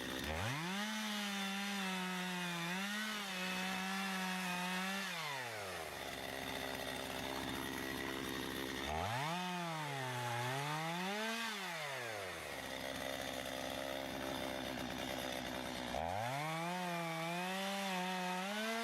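Chainsaw revving to full speed three times while cutting through a bundle of four small sticks, its pitch dipping briefly as the chain bites into the wood and falling back to a low run between cuts.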